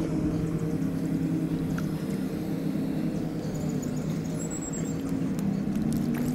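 A motor or engine hums steadily at a low pitch, rising slightly in pitch near the end.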